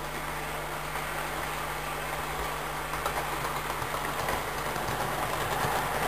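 Model railway train running on the layout track: motor hum and wheels rumbling on the rails, growing steadily louder as the locomotive and its wagons come close and pass, with a few faint clicks.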